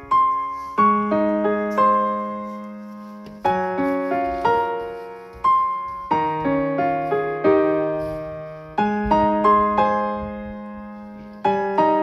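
Solo piano music: a slow melody of single struck notes, about one a second, each left to ring out and fade over a low sustained bass note.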